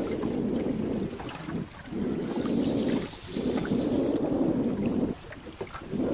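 Wind buffeting the microphone, a low rumble that drops out briefly three times.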